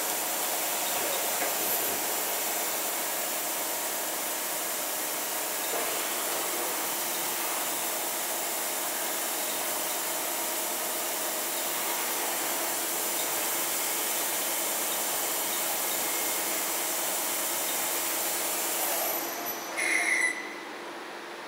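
Takisawa TMM-250 CNC lathe running: a steady hissing whir with several fixed whining tones from the spinning spindle and drives. Near the end the running noise falls away, and a short high-pitched blip follows.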